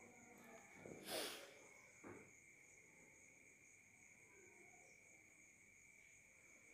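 Near silence: faint room tone with a steady high-pitched whine, a brief rustle about a second in and a soft click about two seconds in.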